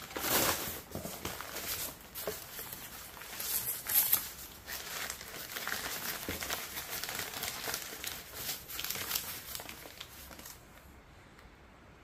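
Crumpled brown packing paper and wrapping rustling and crinkling as hands dig them out of a cardboard shipping box. It comes in irregular bursts and stops near the end.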